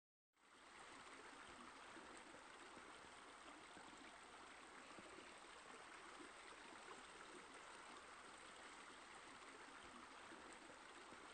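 Faint, steady running water, like a pool's water feature or a stream, fading in just after the start and holding evenly.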